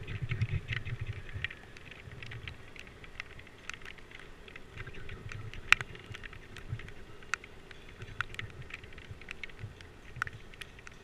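Rain pattering on a GoPro's waterproof housing: irregular sharp ticks of drops striking the case, one louder tick near the middle, over a low rumble that fades after the first second or so.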